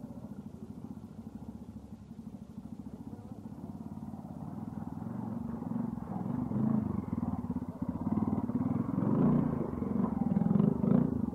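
Vintage Triumph trials motorcycle engine running at low revs while it is ridden slowly over rocks, with the throttle opened in short surges that get louder from about halfway through.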